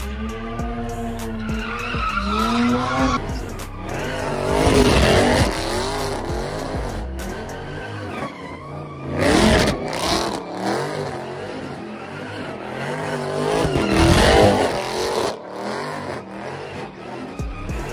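Car engines revving hard and tires screeching as cars spin donuts, among them a red Dodge Charger. The engine note rises and falls at first, then loud surges of revving and tire noise come about three times, roughly every four to five seconds.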